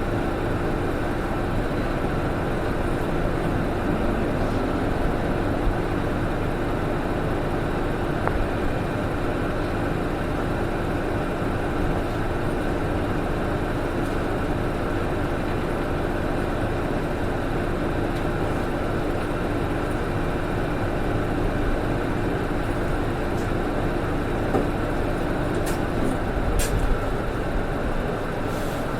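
Cabin noise of a PKG-RA274MAN city bus (MAN diesel engine) running along the road, with a steady whine over the engine and road noise. This bus is known for an abnormal noise. The whine stops about 26 seconds in, followed by a low thump and a few clicks.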